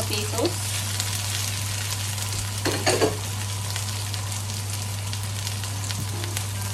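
Onions, bell pepper and carrots sizzling in oil in a non-stick wok as fried potato pieces are dropped in and stirred with a wooden spoon. There is a brief clatter about three seconds in.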